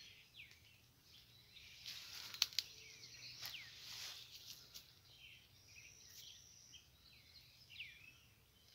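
Small wild birds calling in the background, many short falling chirps, over a rustle of dry leaf litter with two sharp clicks about two and a half seconds in.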